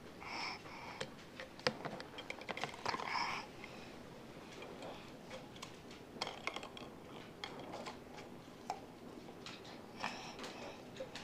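Plastic drinking straws clicking and tapping against an empty plastic baby bottle and a plastic high-chair tray as a toddler pushes them in and pulls them out, a string of small irregular clicks. Short toddler vocal sounds come near the start, about three seconds in and again about ten seconds in.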